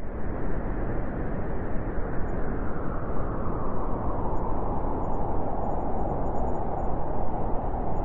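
Blizzard wind blowing steadily across an open snowfield, buffeting the microphone with a low rumble.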